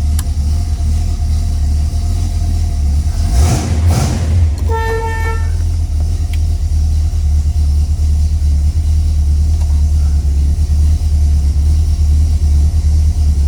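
1970 Pontiac GTO's 455 V8 idling steadily with a deep low rumble. A single short car horn toot about five seconds in.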